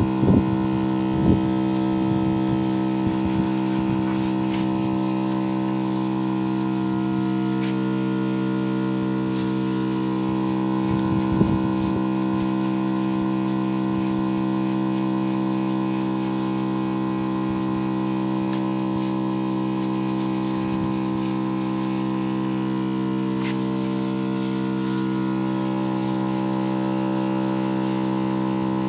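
Electric water pump running with a steady, many-toned hum while it feeds the spray. A few light knocks come about a second in and again around eleven seconds.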